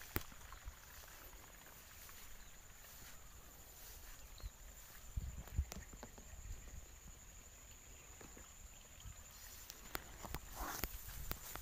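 Footsteps and handling bumps from a hand-held phone carried along a rice-field path, with palm fronds brushing against it around six seconds in. Under them is faint rural background with a steady high-pitched tone.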